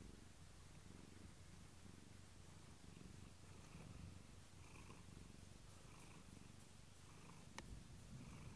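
Domestic cat purring softly right at the microphone, a steady low rumble, with one faint click near the end.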